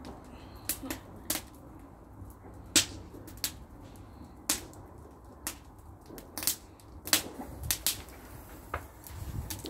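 Bonfire crackling, with sharp, irregular pops of burning wood about once or twice a second.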